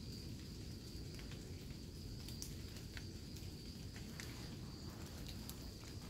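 Outdoor forest ambience: an insect sings one steady high note throughout, over a low, uneven rumble of someone walking. Scattered sharp ticks are heard now and then.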